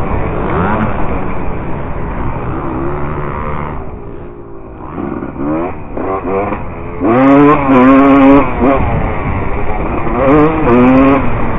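Dirt bike engine heard from a camera on the bike, revving up and down as it is ridden: the throttle eases off about four seconds in, then the engine climbs in pitch again, loudest a little past the middle, with another rise near the end.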